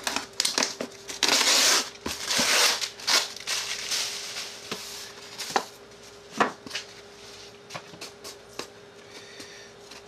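Polystyrene foam shipping box being opened by hand: a long loud rustle and scrape about a second in as the lid is worked free, then scattered knocks and rustles as the lid comes off and the paper lining inside is folded back. A faint steady hum runs underneath.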